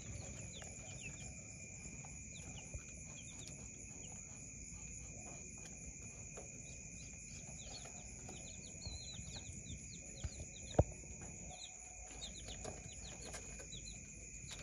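Small caged birds chirping in quick, short calls over and over, above a steady high-pitched drone. A single sharp knock sounds about eleven seconds in.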